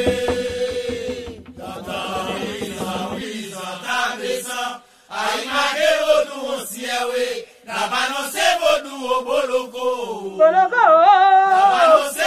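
Voices singing a Haitian Vodou chant for the lwa. A low, steady beat under the singing stops about three seconds in, and near the end one voice rises above the rest with a strongly wavering pitch.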